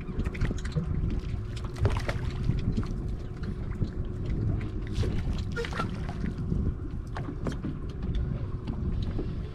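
Wind on the microphone and water lapping against a fishing boat's hull as it drifts, with a faint steady hum underneath and a few light knocks and clicks scattered through.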